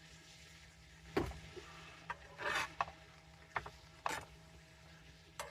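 Cooking gear being handled: a knock, a short rasping scrape, then several sharp clicks.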